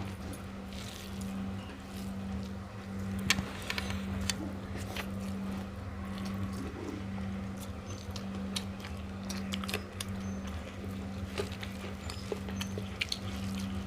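Quiet eating sounds: rice and egg curry being mixed and eaten from plates, with scattered small clicks and taps on the plates, over a steady low hum.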